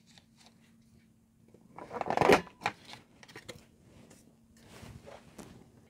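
Handheld corner-rounder punch pressed down through a kraft-paper tag, giving one loud cut about two seconds in. A few lighter clicks and paper handling follow as the tag is moved in the punch.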